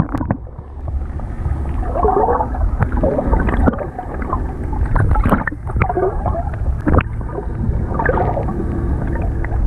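A steady low rumble of wind and water by the sea, with irregular knocks and four short wavering cries.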